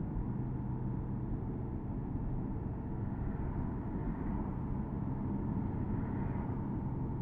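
Porsche Boxster S (987.2) 3.4-litre flat-six engine running steadily at a cruise, with tyre and wind noise, heard from the open-top cabin.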